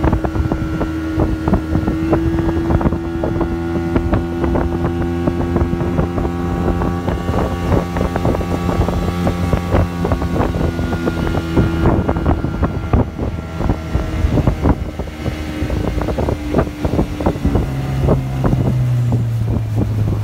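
A small motorboat's engine running steadily under way, with many short knocks throughout. Near the end the engine note drops lower.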